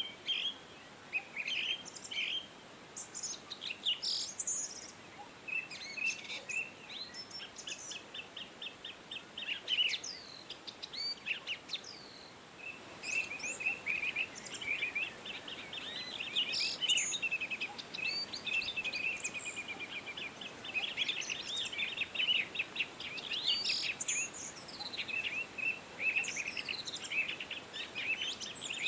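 Small birds chirping and twittering, several calls overlapping, with quick trilled runs of repeated notes.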